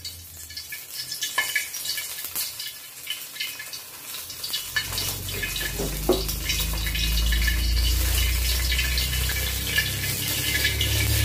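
Hot cooking oil lightly sizzling and crackling around a whole Scotch bonnet pepper frying in a large pot. A low rumble builds from about four seconds in and holds.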